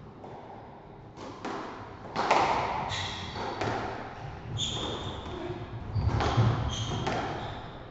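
Squash rally: the ball is struck by rackets and slaps off the court walls in a run of sharp knocks, with short squeaks of shoes on the wooden floor between them.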